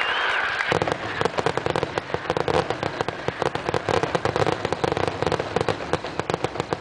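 Fireworks going off in a dense, rapid barrage of bangs and crackles, many per second, starting under a second in.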